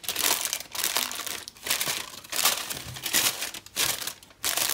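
Baking paper crinkling as it is pressed and smoothed into a round cake tin, in a string of short rustles.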